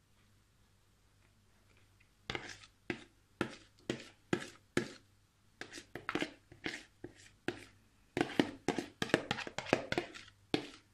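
A run of sharp taps and knocks after about two seconds of near quiet, slow at first and faster and louder from about eight seconds in: a spoon scraping and knocking the last of the thinned strained yogurt out of a plastic bowl.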